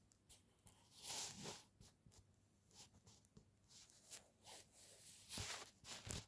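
Guinea pig at the wire bars of its cage, right against the phone, making irregular scraping and rustling noises close to the microphone. The louder scrapes come about a second in and again near the end.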